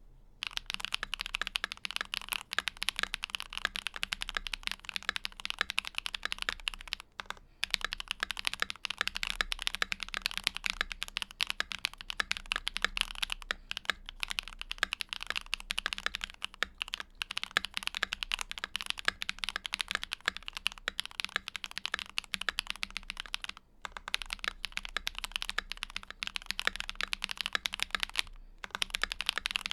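Fast, continuous typing on an ASUS ROG Azoth mechanical keyboard with Gateron Summertime switches, an aluminum plate, GMK Truffelschwein keycaps, PE foam and a tape mod. The typing pauses briefly a few times.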